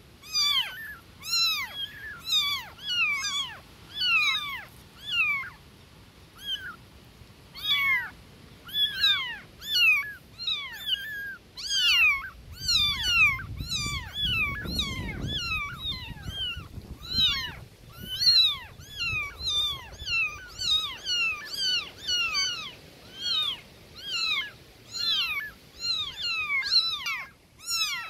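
Newborn tabby kittens meowing over and over, thin high cries that each fall in pitch, one or two a second, calling for their mother. A low rumble runs under them for a few seconds around the middle.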